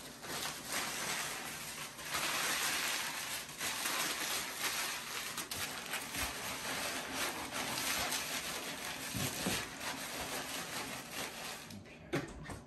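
Packing paper crinkling and rustling steadily as a glass bottle is wrapped in it and packed into a cardboard box.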